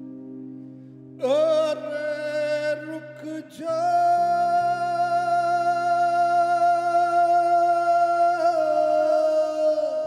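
Live band music: over a steady low drone, a voice swoops up to a short note, then holds one long high note from about four seconds in, wavering slightly near the end.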